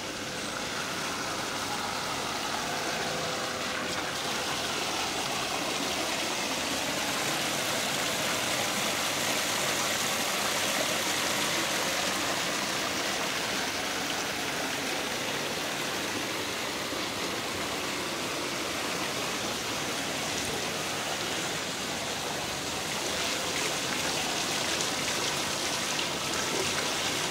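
Steady rush of water running over the overflow edge of an infinity pool.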